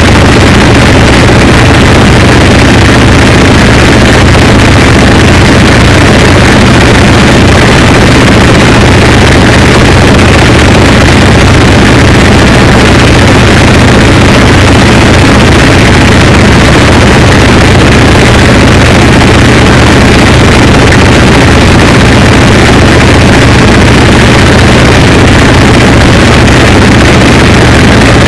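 A dense, unchanging wall of distorted noise at full loudness, with a steady low hum underneath: a harsh noise music track.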